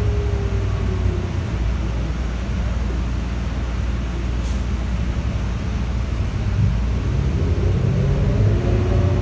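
Cabin sound of a New Flyer Xcelsior XN40 transit bus under way: its Cummins L9N natural-gas engine and Allison transmission running with a steady low rumble and road noise. A faint whine falls in pitch in the first second, and the engine note picks up and grows louder near the end.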